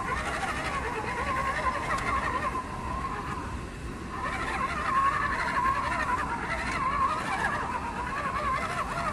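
Electric motor and gearbox of an RC Unimog crawler truck whining as it drives over rocks and mud. The pitch wavers up and down as the load and throttle change.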